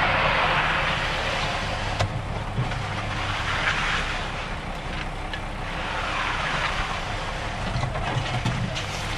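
Bull float swept back and forth across freshly poured wet concrete, a swish that swells and fades every couple of seconds, over the steady hum of an idling engine.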